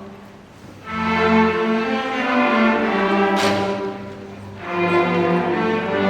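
Middle school orchestra playing sustained bowed string notes. The sound swells in about a second in, eases off near four seconds, and swells again shortly after.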